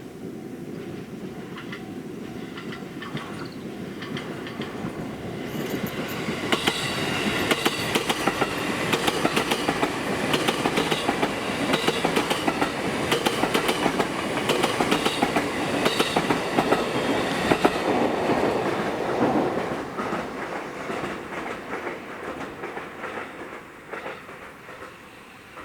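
E653 series 1000 electric train passing by, its wheels clacking over the rail joints in quick repeated clicks. The sound builds, is loudest for about twelve seconds, then fades away.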